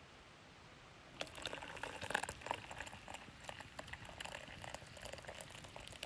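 Hot water for coffee bubbling and splashing in a pot, starting about a second in as a dense, irregular run of small crackles and spatters.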